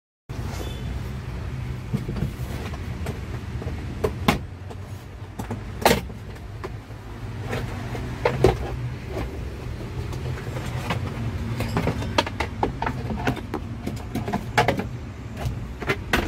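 A Mitsubishi Colt Diesel truck's diesel engine idling steadily, with sharp clicks and knocks over it, the loudest about 6 s and 8.5 s in.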